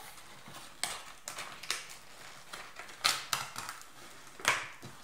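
Plastic packaging crinkling and rustling as hands rummage in a cardboard toy box, with irregular sharp clicks and crackles. The loudest are about three seconds in and again near the end.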